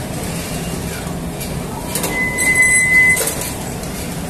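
Flatbread production-line machinery running with a steady mechanical hum as the dough conveyor feeds the oven. A high squeal sets in about two seconds in and lasts about a second.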